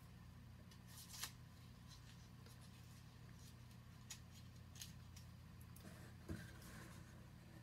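Near silence: a low steady room hum with a few faint clicks and taps from handling a cosmetic eyeshadow stick.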